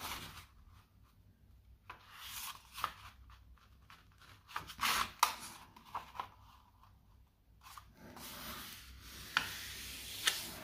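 A sheet of paper being folded in half and creased by hand: the paper rustles and slides, and fingers rub along the fold. The sounds come in short bursts with quiet gaps, then a longer stretch of rubbing near the end.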